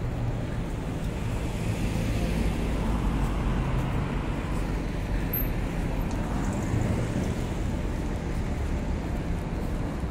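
Steady city street traffic noise, a continuous rumble and hiss of passing road vehicles.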